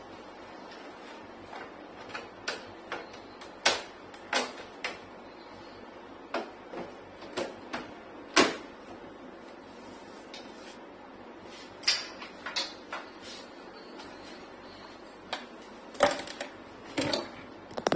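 Plastic front panel of a Sharp split air conditioner's indoor unit being lowered and pressed shut: irregular clicks and clacks as the cover and grille are snapped back into place. Under them runs the steady hiss of the running unit.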